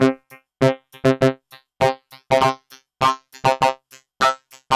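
Drum pattern from a Mod Bap Trinity run through a Make Noise Spectraphon in spectral amplitude modulation mode, heard from its odd output with odd and even summed. Each drum hit comes out as a short, ringing, pitched synth tone, making a beat of two to four hits a second.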